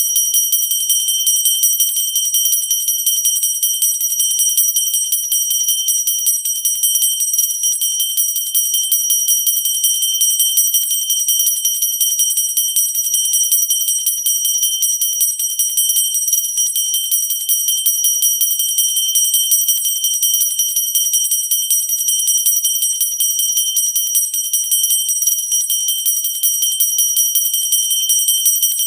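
Hand-held pooja bell rung steadily and rapidly without a break, its clapper striking many times a second, giving a continuous high-pitched ring.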